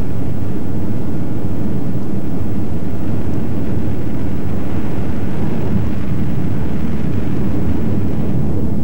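Volcanic gas escaping from cracks and holes above a basaltic lava tube, a loud, steady, deep rushing noise.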